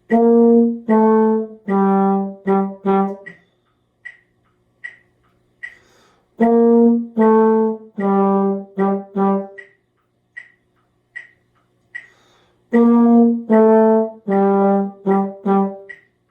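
Brass instrument playing the same five-note phrase three times (B-flat, A, G, G, G, the last three repeated), with a metronome ticking steadily in the gaps between the phrases.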